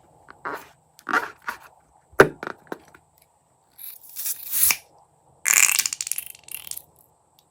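Crunchy slime being squeezed and pressed by hand: a run of short crackling squishes with one sharp snap about two seconds in, then two longer crackling stretches after the middle.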